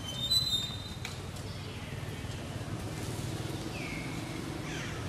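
Young macaques giving short high-pitched squeaks, the loudest a quick cluster about half a second in and two short falling calls near the end, over a steady low background rumble.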